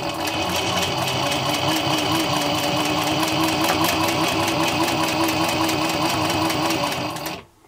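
Industrial leather sewing machine stitching through two layers of leather with a diamond-point needle. The motor hums steadily under a fast, even clatter of stitches, roughly six a second, and it stops abruptly near the end.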